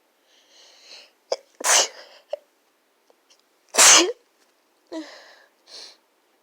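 A person's sneezing fit: a drawn-in breath, then two sneezes about two seconds apart, the second the louder. Two short breaths follow near the end.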